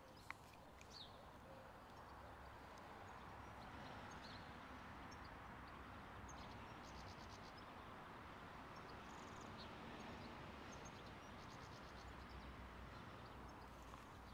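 Near silence: faint outdoor background hiss, with a couple of tiny clicks near the start and a few faint, high, brief chirps.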